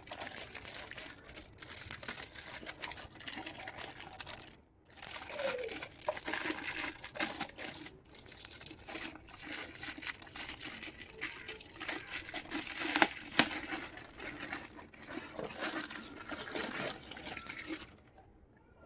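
Plastic packaging crinkling and rustling while small toy pieces are unwrapped, with many small clicks and one sharper click about two-thirds of the way through. It pauses briefly twice and stops just before the end.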